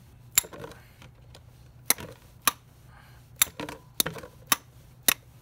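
About seven sharp taps at uneven intervals on a cap-style oil filter wrench, knocking at a stuck, overtightened motorcycle oil filter to break it loose.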